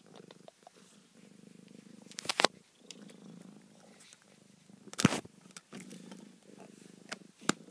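Domestic cat purring steadily close to the microphone, broken by three sharp knocks about two and a half seconds apart, the loudest sounds.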